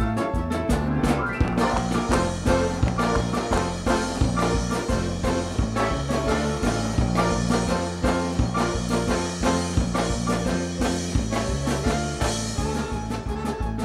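Lively Ukrainian folk dance music with a fast, steady beat.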